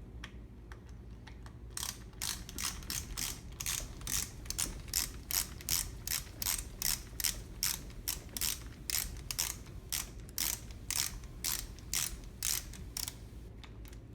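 Ratchet wrench clicking as an 8mm button-head bolt on a trike's spindle pivot is backed out. The sharp clicks come about two to three a second, starting about two seconds in and stopping shortly before the end.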